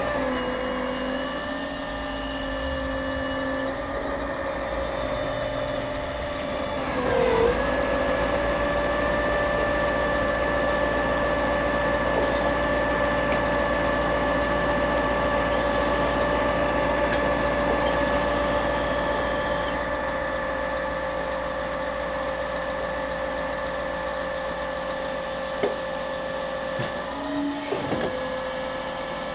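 Scania R580 V8 truck engine driving the Epsilon Palfinger crane's hydraulic pump, a steady whine. About seven seconds in the pitch dips and recovers and it runs louder, as a crane function takes load. A few light knocks near the end.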